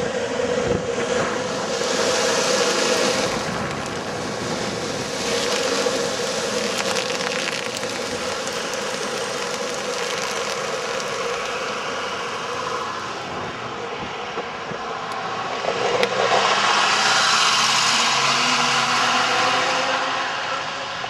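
Longboard's large urethane wheels rolling fast over asphalt: a steady rolling rumble that swells louder a couple of seconds in and again toward the end.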